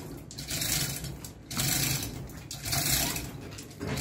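Manual chain hoist worked by its hand chain while carrying a Toyota 4K engine: the chain rattles through the hoist in repeated strokes, about one a second.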